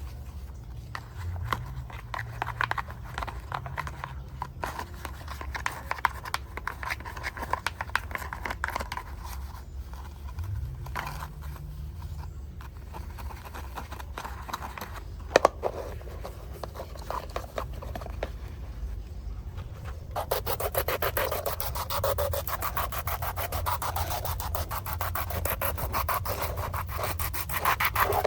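Scrubbing and rubbing on a diecast model car's surface. A single sharp click a little past the middle; about two-thirds of the way through the strokes turn faster, denser and louder.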